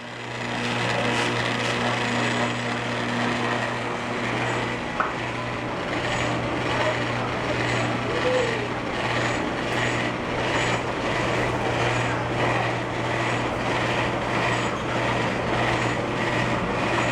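Carousel drive running on its newly installed main drive shaft: a steady motor hum under a broad mechanical rumble, with a faint regular ticking from about six seconds in.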